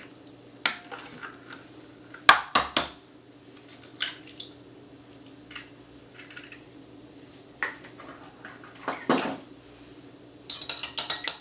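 Kitchen clatter of eggs being tapped on a bowl and cracked into it, with scattered knocks and clinks of dishes and utensils. Near the end comes a quick run of clinks as a fork beats the eggs in the bowl.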